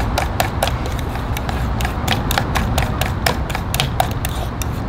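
Utensil beating yellow batter in a stainless steel mixing bowl, clicking against the metal about four to five times a second in a steady rhythm.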